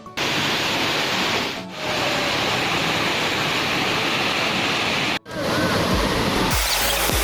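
Waterfall rushing: a steady, loud roar of falling water, broken twice by brief dropouts. Low rumbling wind buffeting on the microphone comes in near the end.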